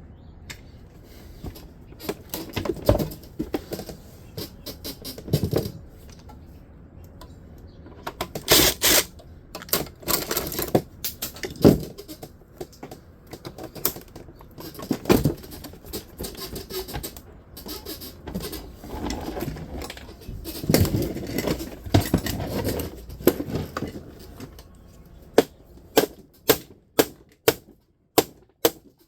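Metal parts of a dehumidifier being handled and pried apart by hand: irregular clanks, knocks and rattles. Near the end comes a run of sharp, evenly spaced strikes about two a second.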